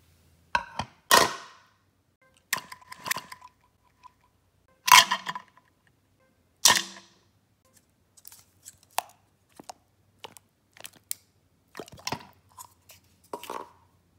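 A plastic slime tub and its lid knocking and clicking against a plastic cup as they are handled. The three loudest knocks come about a second, five seconds and seven seconds in, followed by a run of quieter irregular clicks and taps.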